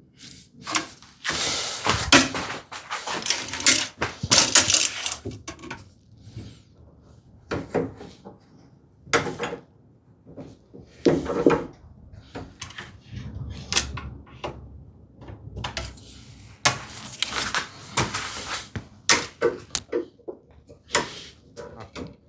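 Woodworking clamps being set and tightened on a glued-up dovetailed cabinet case: an uneven run of clunks, knocks and scraping as clamps and boards are shifted and pulled together.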